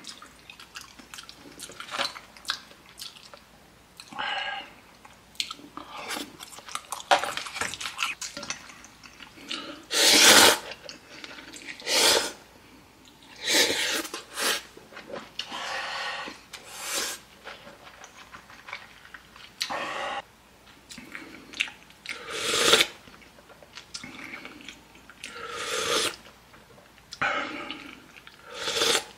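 Close-up eating sounds: chewing of raw yellowtail sashimi and ramen, broken every few seconds by short, louder noisy bursts. Near the end comes a sip of soup from a wooden spoon.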